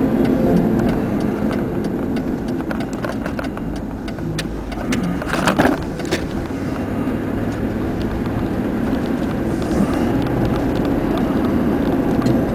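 Cabin noise of a car driving slowly: a steady low engine and tyre rumble with scattered small rattles and clicks, and a louder short clatter about five and a half seconds in.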